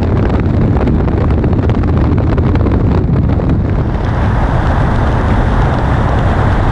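Wind buffeting the microphone over a moving vehicle's running noise, with a dense patter of small rattles. About four seconds in it changes to a smoother, steady rush of wind and road noise from a moving car.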